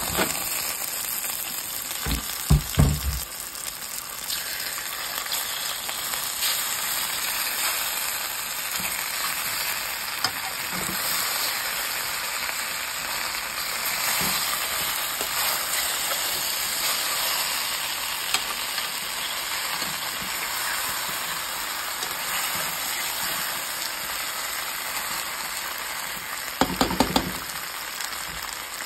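Boiled cassava and duff frying in oil with onions in a pan: a steady sizzling hiss, with a few dull knocks about two to three seconds in and again near the end.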